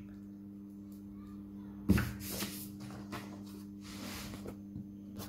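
A glue stick and card being handled on a glass table: a sharp knock about two seconds in, then several short scraping and rustling strokes, over a steady low hum.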